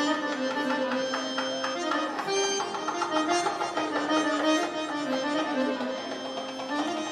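Baladi music: a melody line sliding between notes over hand strokes on a darbuka goblet drum.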